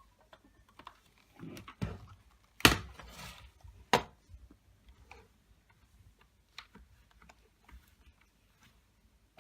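Scattered sharp clicks and knocks of hard objects being handled. The loudest knock comes about a third of the way in, with a brief rustle after it, and another follows about a second later.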